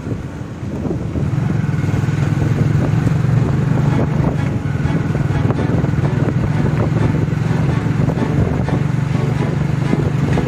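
Hero Splendor iSmart's single-cylinder four-stroke engine running steadily under way.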